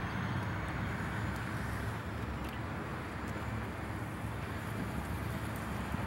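Steady low rumble of a distant diesel freight locomotive approaching, mixed with wind noise.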